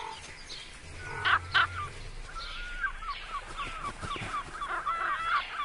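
Bird calling: two louder calls just over a second in, then a rapid run of short, high yelping notes, about three or four a second.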